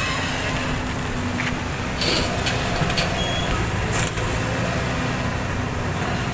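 JCB crawler excavator's diesel engine running steadily as the machine swings and dumps a bucket of sand and gravel into a dump truck, with a few short clatters of the load landing in the truck's bed around the middle.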